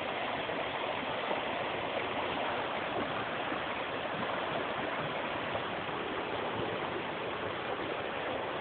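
A flood-swollen river rushing, running unusually high after heavy rain; a steady, even rush of water.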